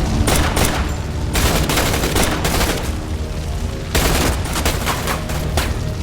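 Bursts of automatic gunfire: a few quick shots at the start, a long rattling burst of about a second and a half, then another volley and scattered shots near the end, over a low music bed.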